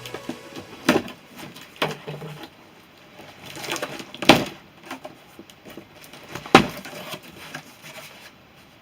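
A package being opened by hand: rustling and scraping with four sharp knocks, the loudest a little past four seconds in.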